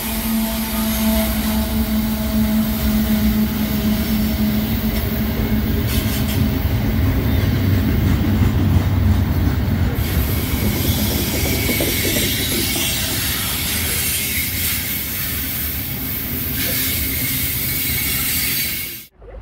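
Freight train passing close: a diesel locomotive's engine drone, then covered hopper cars rolling by with their wheels clattering on the rails and a thin wheel squeal partway through. The sound cuts off suddenly near the end.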